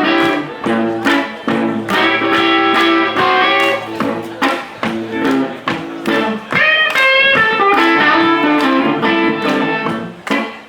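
Blues guitar playing an instrumental passage between sung verses, plucked notes over a steady beat from the live band.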